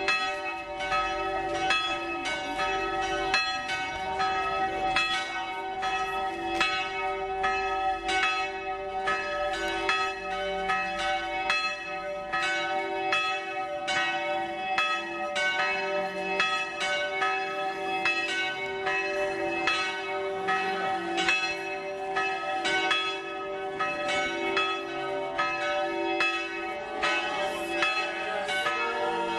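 Church bells ringing continuously: a steady run of strikes, each ringing on in long sustained tones.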